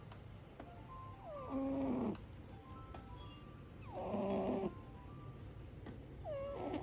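A cat snoring: three pitched snores about two and a half seconds apart, each sliding down in pitch.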